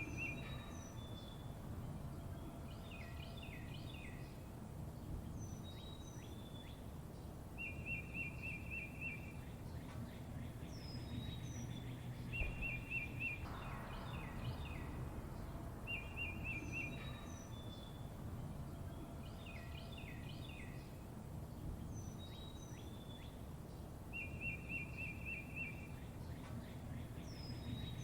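Songbirds chirping and whistling over a steady low rumble of background noise. A short rapid trill recurs every few seconds between higher chirps.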